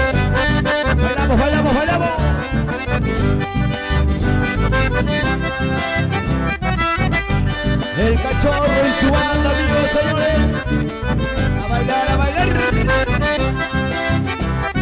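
Chamamé played on a piano accordion, which carries the melody over a steady beat in the bass.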